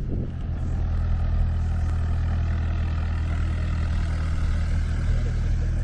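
An engine running steadily, a low even drone with a faint higher hum that holds at one pitch.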